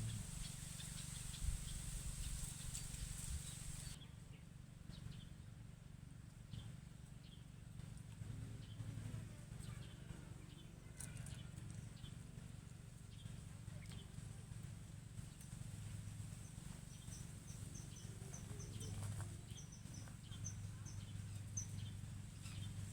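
Quiet outdoor ambience: a steady low rumble throughout, with a high hiss that cuts off about four seconds in. Through the second half, short high chirps repeat, from a small bird calling.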